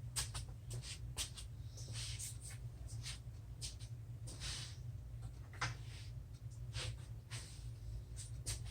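Handling noises: scattered light clicks and a few short rustles, over a steady low hum.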